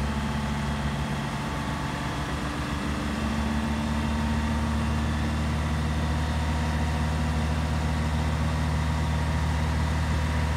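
A large vehicle engine idling steadily: a low, even hum that grows slightly louder about three seconds in.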